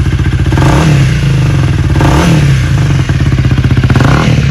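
Honda Rebel 250's single-cylinder engine running through a Trick Star slip-on muffler, blipped by hand three times: each rev climbs briefly and drops back to idle.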